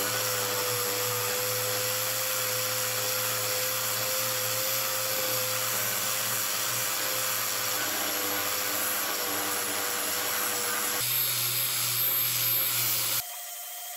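An electric motor running steadily with a constant whine. Near the end it cuts abruptly to a quieter, different sound.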